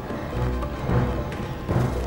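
Background score music with low drum beats about twice a second.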